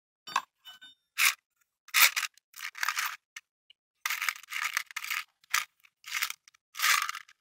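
Metal parts and hardware being handled and scraped against each other: a string of short, irregular scrapes and clicks.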